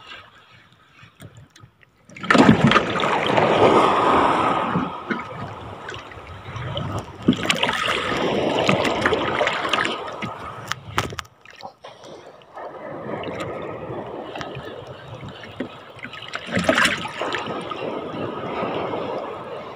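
Sea water washing against the shore in three long surges that swell and fade, each lasting a few seconds, with a short lull between the second and third.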